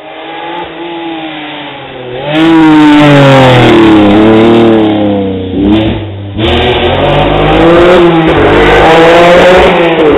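A rally car's engine at full throttle as the car approaches and passes at speed. The revs rise and fall through gear changes, and there is a short lift off the throttle about six seconds in before it pulls hard again.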